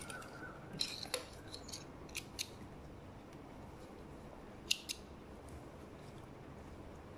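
Small spring-loaded thread snips clipping sewing thread: three pairs of short, sharp snips, about one, two and a half, and nearly five seconds in.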